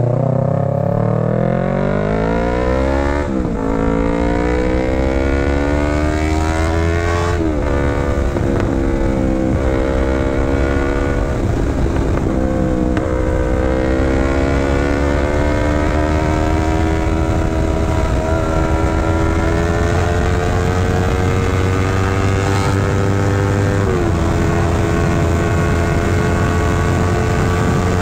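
Yamaha R3's parallel-twin engine accelerating hard through the gears. The pitch climbs steeply and falls back at each upshift, about four shifts, with the later gears pulling longer and slower. A steady low wind rumble on the microphone runs underneath as speed builds.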